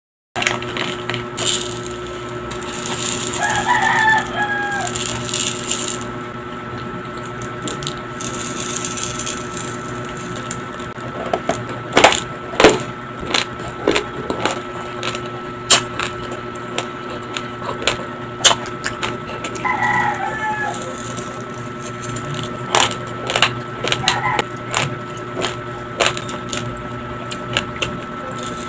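Raw medium-grain white rice crunched between the teeth in sharp, uneven cracks, the grains hard but not so crunchy, with the cracks coming mostly from about ten seconds in. A rooster crows in the background, once about four seconds in and again about twenty seconds in, with a shorter call soon after. A rustling hiss is heard in the first several seconds, over a steady low hum.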